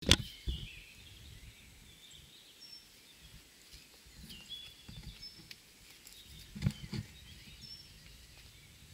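Quiet outdoor ambience with a few short, high bird chirps scattered through it. A sharp click right at the start is the loudest sound, with a soft thump just after it and two more low thumps about two thirds of the way in.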